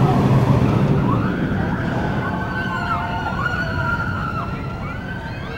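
Inverted roller coaster train rumbling along its steel track, loudest in the first second. From about a second in, the riders' screams rise and fall over it in several overlapping voices.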